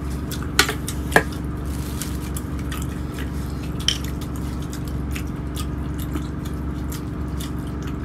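Eating rice and curry by hand from steel plates: soft wet squishing of rice being mixed, with small clicks and three sharper clinks against the plates, about half a second, a second and four seconds in. Under it runs the steady low rumble of the moving train carriage.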